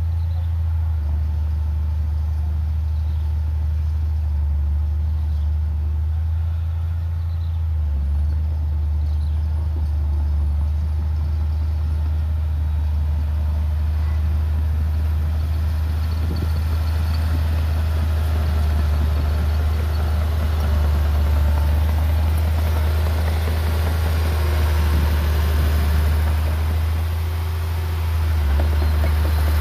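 Heavy earthmoving machine's diesel engine running with a steady low drone, with more mechanical rattle building from about halfway through.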